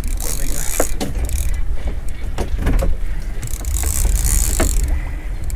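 Wind rumbling on the microphone and sea noise around a small open fishing boat, with hissing spells of spray and water and a few short knocks of tackle or hull.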